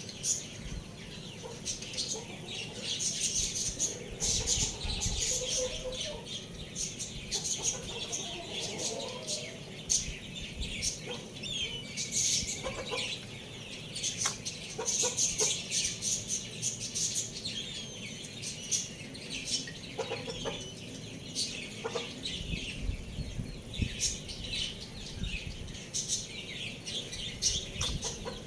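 Young roosters clucking, with many small birds chirping busily behind them and scattered short clicks and wing flutters.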